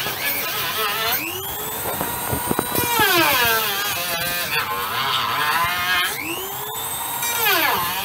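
Small handheld electric rotary tool running at full speed and cutting a grooved board. Its high whine drops in pitch as the cutter bites and climbs back as the load eases, several times over.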